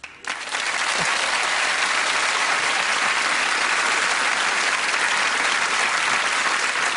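Studio audience applauding, breaking out suddenly and holding steady.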